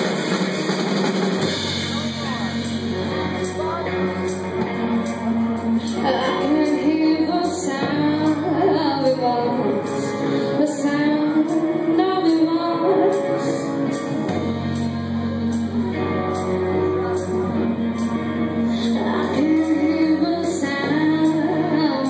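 Live band music: a woman singing over electric guitar, bass guitar and drums, the bass holding long low notes that change every few seconds.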